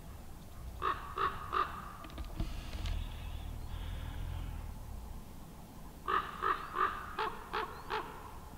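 Corvid cawing: a quick series of three harsh caws about a second in, then a longer run of six or seven caws from about six seconds in, over a low rumble.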